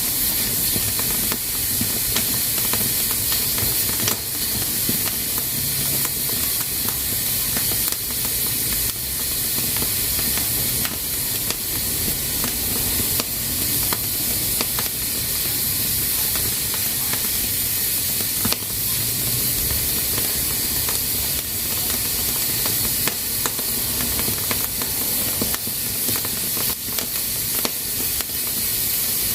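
Pressure cooker hissing steadily as steam escapes through its valve, with scattered faint clicks throughout.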